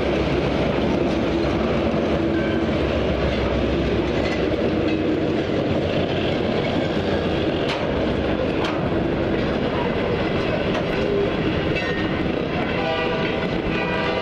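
A freight train of boxcars rolling slowly past close by on street track: a steady rumble of wheels with clanks and clicks from the cars. A high pitched tone with several overtones joins near the end.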